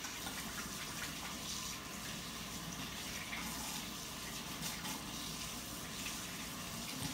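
A kitchen tap running steadily into the sink while slime-covered hands are rinsed under it.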